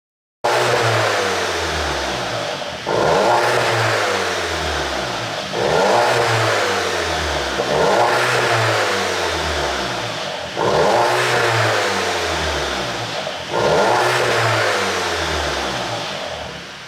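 Turbocharged four-cylinder engine of a 2019 Audi A3 40 TFSI blipped repeatedly, about five sharp revs a few seconds apart, each falling back in pitch. On the overrun it crackles and pops from an ECU tune made to give exhaust pops.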